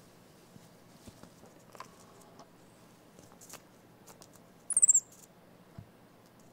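Baby cinnamon capuchin monkey giving one short, very high-pitched squeak that falls slightly in pitch, about five seconds in, among faint light taps and scuffs of her hands and feet on the mirror and fleece.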